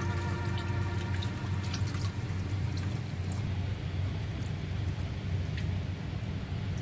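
Used engine oil draining from an oil-pan drain hole into a collecting tray during an oil change: a thin stream trickling and splashing, with scattered separate drips.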